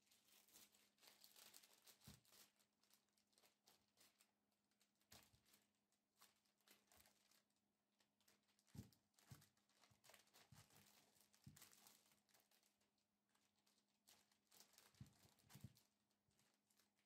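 Faint crinkling and rustling of a clear plastic bag as yarn cones and a magazine are packed into it, with a few soft knocks of the cones against the table.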